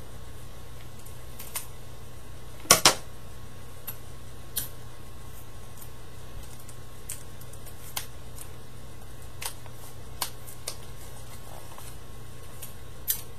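Paper and sticky tape being handled while taping a paper model gun's handle: scattered crisp crackles and clicks, with two loud ones in quick succession about three seconds in, over a steady low hum.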